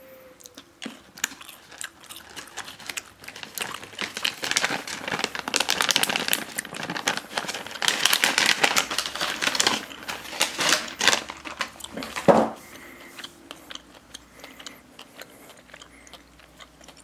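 Foil-lined plastic gum pouch crinkling as it is handled and folded closed by hand: a dense run of small crackles and rustles that builds, is loudest through the middle, and thins out near the end.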